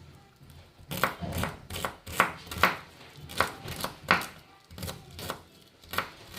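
A quick series of sharp clicks and taps, roughly two or three a second, starting about a second in.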